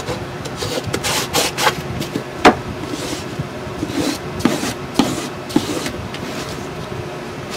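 Sanding block rubbing over a painted chipboard box lid in a few scratchy strokes, sanding back antiquing cream, with several sharp knocks; the loudest knock comes about two and a half seconds in.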